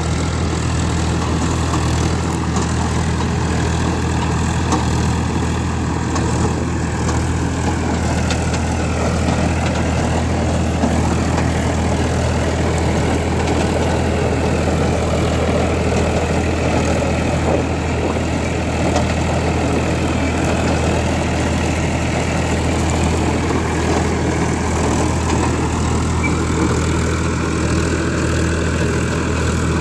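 Escorts Digitrac tractor's diesel engine running steadily under load as it drives a rotavator through dry stubble, with the noise of the working rotavator under it.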